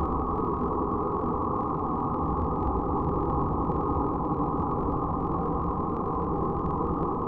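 Dark ambient noise drone: a steady, dense, muffled wall of rumbling noise with no beat or melody, its sound cut off above the low-mid range.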